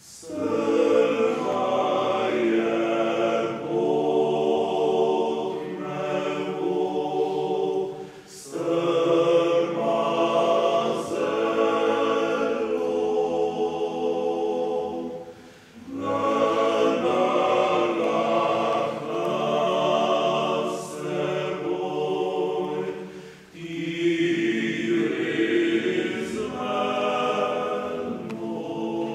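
Male vocal octet singing a cappella in harmony. The singing comes in phrases broken by three short pauses, about eight seconds apart.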